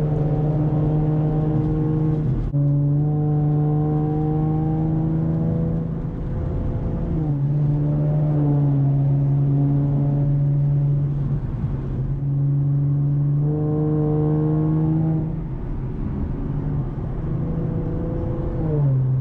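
2014 Ford Mustang's engine and aftermarket exhaust droning steadily while driving, held at fairly even revs in several stretches of a few seconds each, with brief dips in pitch between them.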